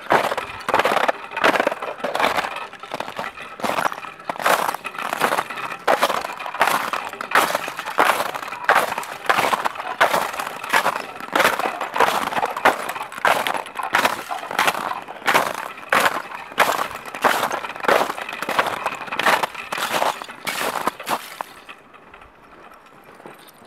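Footsteps of boots crunching on snow-covered river ice, at a steady walking pace of about two steps a second. The steps stop a couple of seconds before the end.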